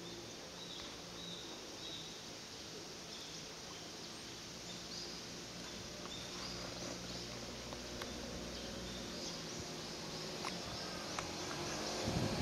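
Outdoor ambience: a steady low hum with faint, short, high chirps repeating throughout and a few small clicks, and a low rumble building near the end.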